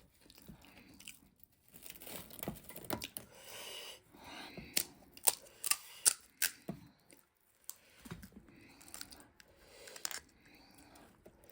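Crisp pani puri shells cracking and crunching while being eaten, with crinkly crackling throughout and a run of sharp cracks about halfway through.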